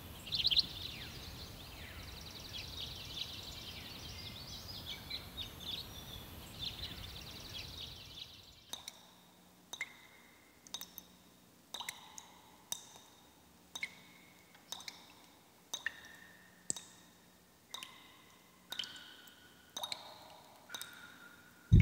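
Small birds chirping over faint outdoor ambience. About eight seconds in this gives way to a series of short pitched plinks, roughly one a second, each at a different pitch and dying away quickly.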